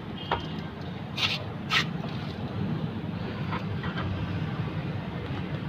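Hyundai Santro front drive shaft being pushed and turned into the gearbox's axle seal: a few metallic clicks and knocks as the splined end slides home, the sharpest about a second and a half in, over a low steady hum.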